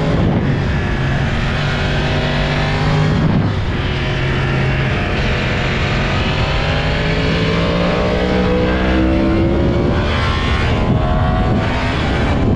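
Yamaha YZF-R1 inline-four engine under hard acceleration at track speed, heard onboard with heavy wind rush. The engine note climbs steadily through the middle and dips briefly about three seconds in and again near ten seconds.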